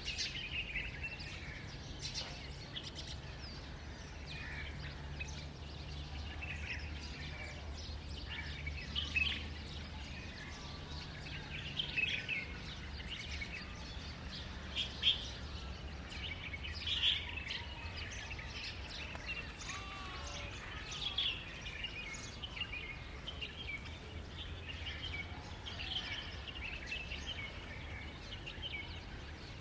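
Birds chirping with many short, scattered calls over a low steady hum.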